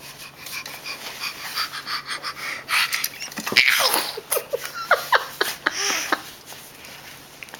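Breathy, sneeze-like puffs of air, then a quick run of short, high squeaks.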